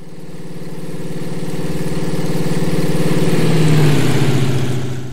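Piston-engine propeller aircraft flying past: a steady, pulsing engine drone that grows louder for about four seconds, then fades away near the end.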